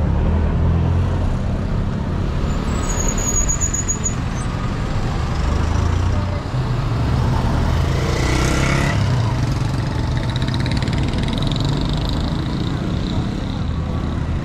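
Street motor traffic with a steady low engine rumble close by. A brief rushing swell comes a little over halfway through.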